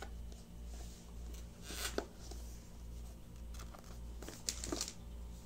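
A small cardboard fitness-band box being opened by hand, its seal and packaging giving two short tearing, scraping rustles about two seconds in and near the end, over a steady low hum.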